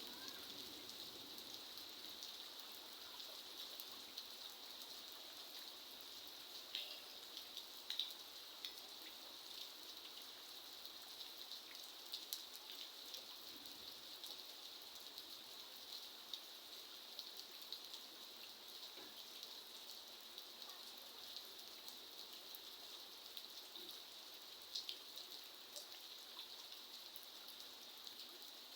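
Steady, quiet rainfall with scattered louder individual drops ticking on a surface.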